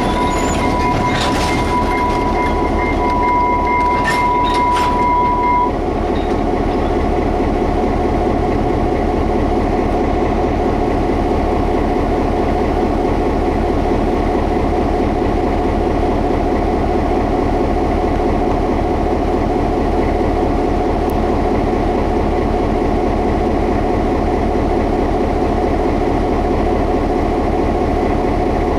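EMD GP9 diesel-electric locomotive running steadily while switching cars; its 567-series two-stroke V16 diesel works under load. A high, steady squeal sounds over it for the first six seconds or so and then stops, and a few knocks come about a second in and again around four to five seconds in.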